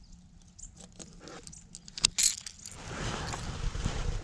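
Light metallic clicks and rattles of fishing gear being handled in a kayak, with one sharper click about two seconds in and a steadier rustling noise over the last second or so.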